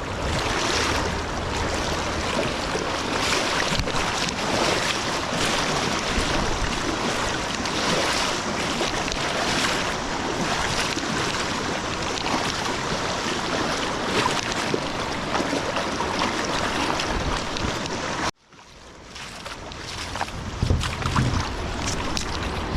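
Steady rush of river water and splashing, with wind buffeting the microphone. It cuts off suddenly about eighteen seconds in, then returns quieter.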